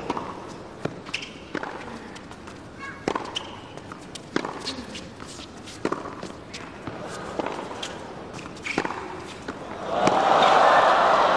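Tennis rally: rackets strike the ball back and forth, a sharp hit about every second and a half. About ten seconds in, as the point ends, the crowd breaks into loud applause and cheering.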